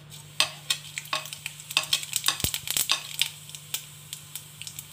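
Cumin seeds crackling and popping as they hit hot oil in a kadhai, a quick irregular scatter of sharp pops that is thickest in the middle, with one dull knock about halfway through.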